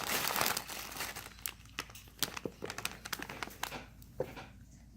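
Crinkly packaging being handled and opened to get at a squishy toy: a dense crinkling over the first second, then scattered crackles that thin out and stop about four seconds in.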